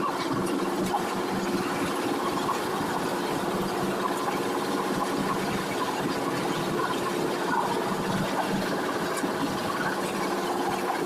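Steady running noise of a vehicle in motion: an even rumble with a constant low hum throughout.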